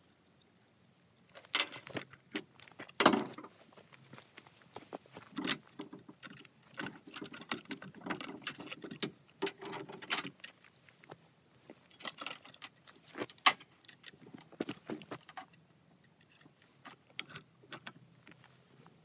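Metal clinking and rattling of a chainsaw chain and its tool being handled: irregular sharp clicks, busiest in the middle, as the chain is taken off and turned around because it was fitted with the teeth facing the wrong way.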